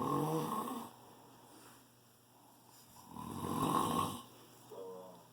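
A man snoring in his sleep: two long snores about three seconds apart, with a short pitched snort near the end.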